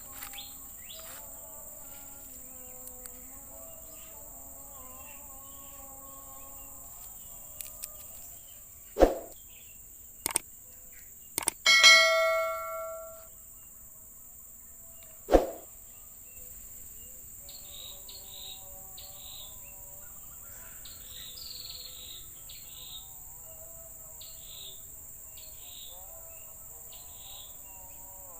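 Rainforest insects droning steadily and high-pitched. Partway through come several sharp knocks and one ringing metallic clang that dies away over about a second, and short chirps come and go later on.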